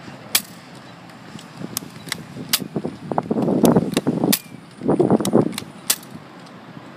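Nerf N-Strike Maverick revolver dart blaster being primed and fired: about six sharp, separate plastic clicks and snaps spread over several seconds, with two short spells of rustling noise between them.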